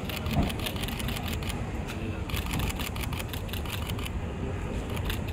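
Camera shutters from several photographers clicking rapidly and irregularly, thinning out near the end, over a steady low background rumble.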